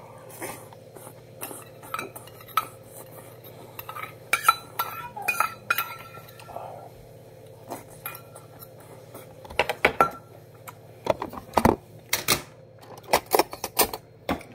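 Metal spoon clinking and scraping against a handheld stainless steel bowl during a meal, with other dishes clinking on the table. The clinks are irregular and sharp, some ringing briefly, over a steady low hum.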